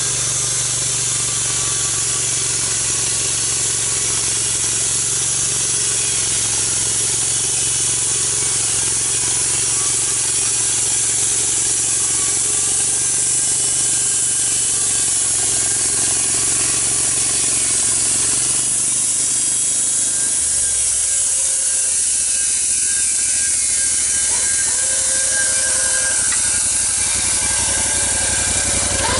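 Engine-driven sawmill running steadily while its blade cuts through a big log to make boards, with a loud, even high hiss over the engine hum. The engine note changes and drops about twenty seconds in.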